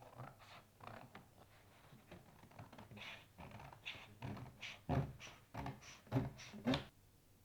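Paper and craft tools being handled on a work table: irregular rustling, clicks and taps, with three heavier knocks near the end.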